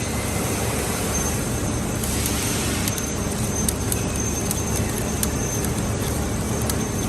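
3D-printer filament extrusion line running: a steady machine drone with a faint high whine and a few scattered light clicks.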